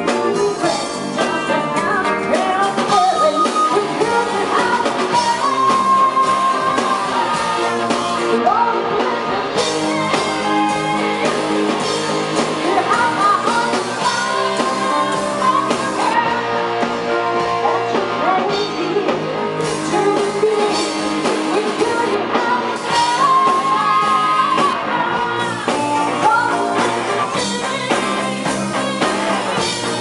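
A woman singing into a microphone with a live rock band behind her, drums and amplified instruments playing steadily throughout.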